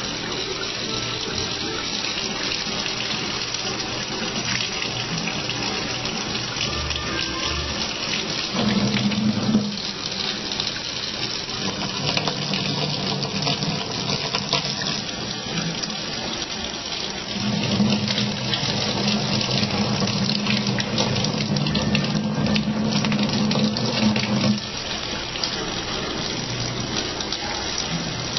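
Kitchen tap running steadily in a thin stream into a sink, with background music playing along; the music's low notes grow louder briefly about nine seconds in and again for several seconds past the middle.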